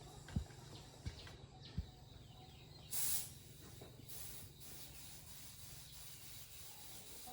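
A short, loud hiss of escaping air about three seconds in, as when working on a motorbike tyre and inner tube. Three soft low knocks come before it.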